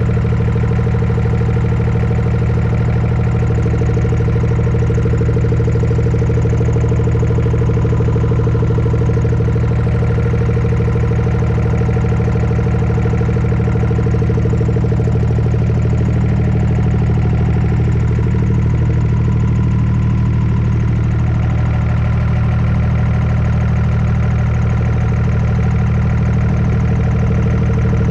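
Hino truck's diesel engine idling steadily, with its air brake compressor running. A brake air line is blocked by ice, so the air is forced back out instead of building pressure.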